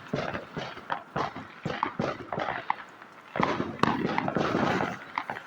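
Fireworks and firecrackers going off: a dense, irregular string of sharp bangs and crackles, busiest a little past the middle.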